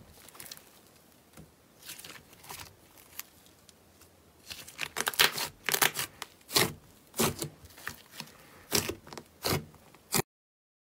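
Hands poking and squeezing thick white slime in a glass bowl, making an irregular run of sharp pops and crackles that come thickest in the middle of the stretch. The sound cuts off suddenly near the end.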